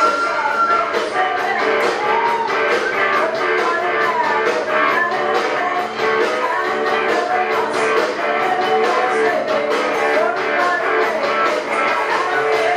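Live rock band playing: a woman singing lead over electric guitar and drums with a steady beat.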